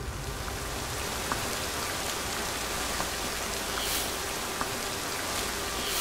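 Heavy rain pouring onto a wet street: a steady, dense hiss with a few scattered drip ticks.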